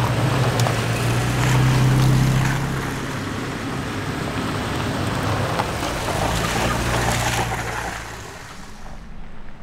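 A 4x4 driving off-road: its engine runs with a low drone that swells about two seconds in and again near seven seconds, under a loud rushing noise that fades out near the end.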